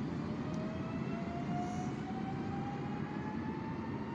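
Electric multiple-unit train accelerating: its traction motors give a slowly rising whine over a steady low rumble.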